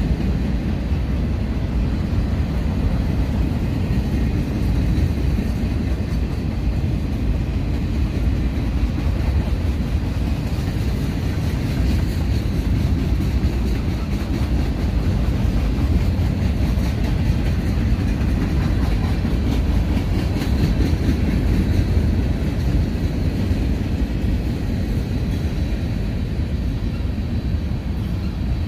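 Freight cars of a mixed manifest train, boxcars and tank cars, rolling past: a steady rumble of steel wheels on the rails.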